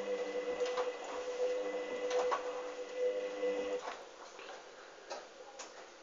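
Hoover Dynamic washing machine in the main wash of its gentle wool and silk programme at 30 °C: the drum motor whines steadily as the drum turns slowly, with soft knocks and splashes from the wet laundry tumbling. The motor stops a little under four seconds in and the drum rests, part of the gentle cycle's turn-and-pause pattern.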